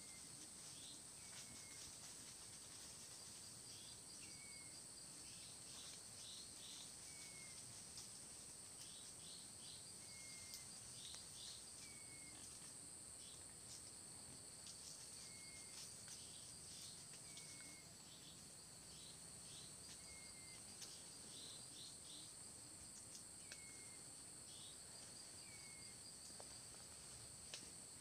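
Faint, steady high-pitched drone of insects, with a short chirp repeating every second or two and small clusters of quick pulses.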